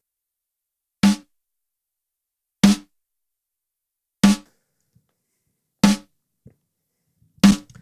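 A recorded snare drum playing single hits, five strikes about a second and a half apart, each short and clipped off quickly. It is being played back through a Lindell Audio 7X-500 1176-style compressor in all-buttons mode at a 100:1 ratio, so each hit is heavily compressed.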